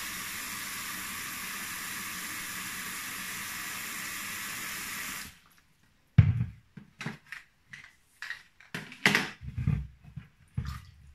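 Kitchen tap running in a steady stream into a glass bowl of Belgian endives, shut off suddenly about halfway through. Then irregular splashes and knocks as hands move the endives around in the water-filled bowl.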